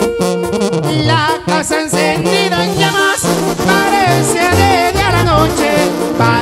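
Banda sinaloense brass band playing an instrumental passage: trombones and trumpets carry a wavering, vibrato-laden melody over sousaphone bass and drums.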